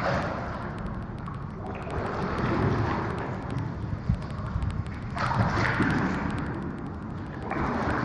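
Rowboat oars dipping and pulling through the water, a swishing splash every few seconds, over a low rumble of wind on the microphone.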